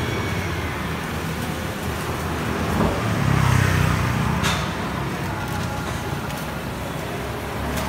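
Steady street traffic noise with a low engine rumble. A passing vehicle swells louder about three seconds in, and a sharp click comes near the middle.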